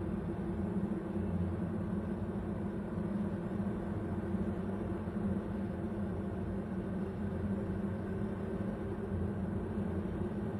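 A steady low rumbling drone that does not change, with no distinct events.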